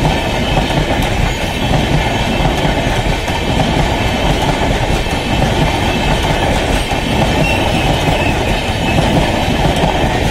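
Express passenger train running past close by: a steady rumble and clatter of coach wheels on the rails.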